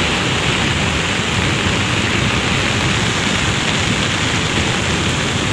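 Muddy flash-flood torrent rushing past buildings: a steady, loud wash of water noise with no break or single crash.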